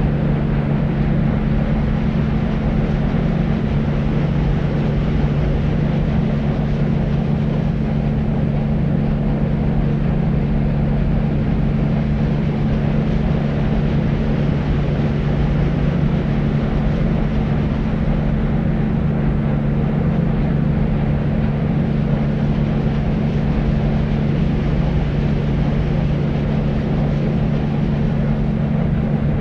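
Deep white noise: a constant low, rumbling hiss with a steady hum underneath and little high treble, unchanging throughout.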